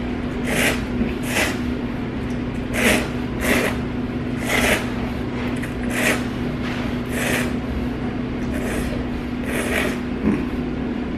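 A person slurping ramen noodles in about nine short, hissy slurps, each under half a second and roughly a second apart.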